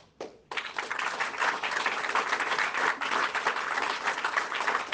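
Audience applauding, starting abruptly about half a second in.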